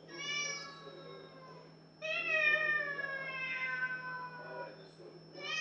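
Siamese cat yowling in long, drawn-out meows: a call of under two seconds, then a longer one of about three seconds, each sliding slowly down in pitch, and another beginning right at the end.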